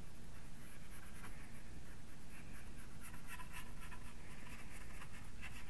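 Short scratchy brush strokes: a small flat brush dabbing and dragging acrylic paint across a paper-faced foam board. The strokes are sparse at first, then come quickly one after another from about halfway through.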